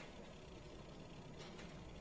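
Near silence: faint steady room noise, with one faint tap about one and a half seconds in.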